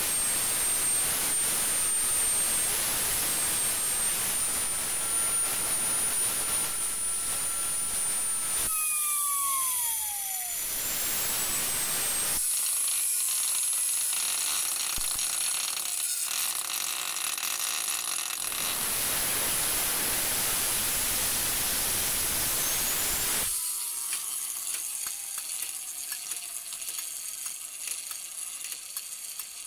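Small ball bearing spinning at very high speed: a high-pitched whine over a loud hiss, with sudden cuts between takes. About nine seconds in the whine drops in pitch as the bearing spins down, and it falls again over the last few seconds.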